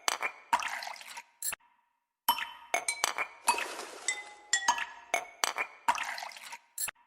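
Background music: a looping pattern of tinkling, glass-like chime notes at several pitches. It breaks off into short silences about a quarter of the way in and again near the end, then starts over.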